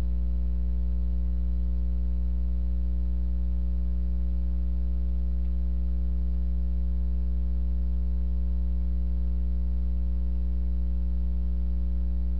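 Loud, steady electrical mains hum with a ladder of overtones, unchanging throughout.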